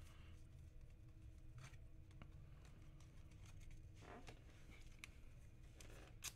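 Near silence over a low steady hum, with a few faint clicks and rustles of trading cards and a card pack being handled, the longest rustle about four seconds in.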